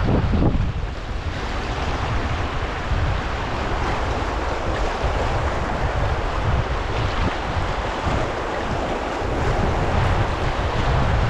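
Fast, broken river water rushing and splashing around a canoe's hull as it runs a shallow rapid, with wind buffeting the microphone as a steady low rumble.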